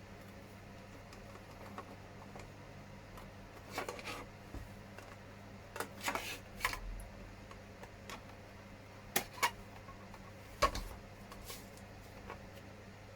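Hard plastic body parts of a small-scale RC truck cab being handled and fitted together: scattered light clicks and taps, a few at a time, with a low steady hum underneath.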